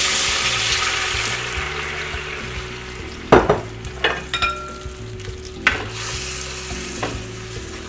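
Teriyaki sauce of sake, mirin, soy sauce and sugar deglazing a hot pan of seared chicken thighs: a loud hiss that dies down over the first few seconds into a quieter sizzle. A utensil knocks against the pan a few times about three to seven seconds in.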